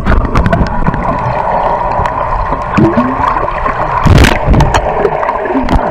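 Water rushing down a water-park slide, heard from a camera riding along, with heavy wind rumble on the microphone and a louder burst of splashing about four seconds in.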